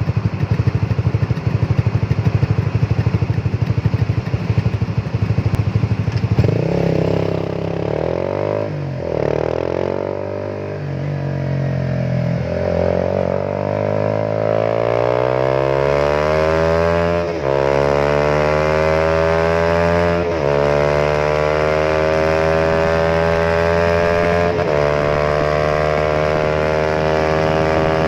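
Honda RS150R's single-cylinder DOHC engine through an aftermarket 28 mm exhaust, idling steadily, then accelerating about six seconds in. Its pitch climbs and drops back at each gear change, with several upshifts, the clearest in the second half.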